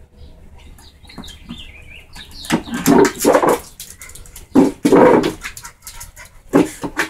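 A small dog whining briefly, then barking loudly a few times.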